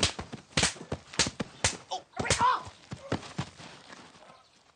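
A rapid series of sharp hand slaps, about five in the first two and a half seconds, then a few weaker ones trailing off, with a short cry among them.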